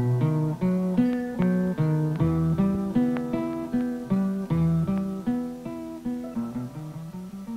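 Background music: a guitar picking a run of single plucked notes, about three or four a second, getting quieter and fading out near the end.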